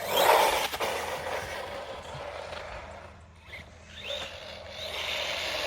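Brushless RC truggy (HoSpeed Polar Lights) driving: its loud motor and drivetrain noise fades away to a low point about halfway through, then builds up again as it comes back close. The drivetrain makes a noise that the driver suspects may be a gearing issue or parts still breaking in.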